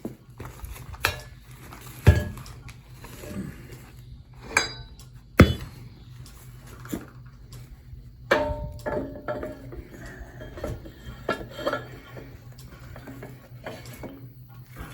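Steel parts being handled and set in place: irregular sharp metal clanks and clinks, the loudest about two and five and a half seconds in, over a steady low hum.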